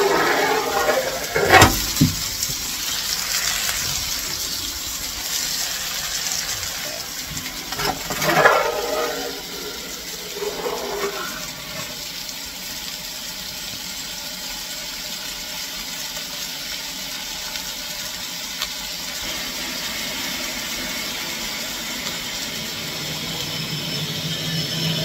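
Steady rushing hiss of a steam locomotive's fire and cab steam fittings, heard through the open firehole while a shovel of food cooks over the coals. Two sharp metallic knocks come about one and a half to two seconds in.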